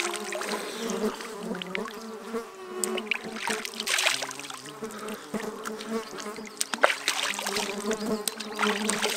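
Flying insects buzzing steadily close by, with splashes of river water as hands scoop it over the head and face, near the start and again about four seconds in.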